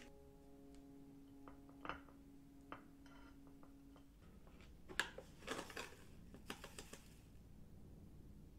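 Quiet handling sounds of a hallabong being peeled by hand and its segments set on a plate: a few soft clicks and rustles, getting busier with a sharp tap about five seconds in.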